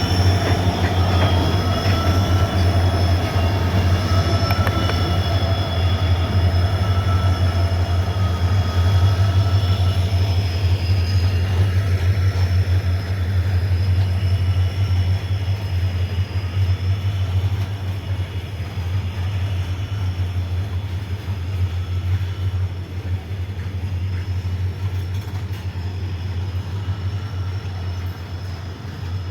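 Goods train rolling past on the rails, a low rumble under steady high-pitched wheel squeal that wavers slightly in pitch, easing off a little in the second half.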